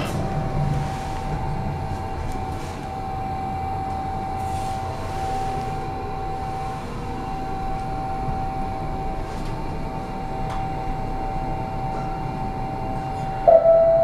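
Toshiba hydraulic passenger elevator running, with a steady whine over a low rumble. Near the end, the arrival chime strikes the first note of a falling two-note chime.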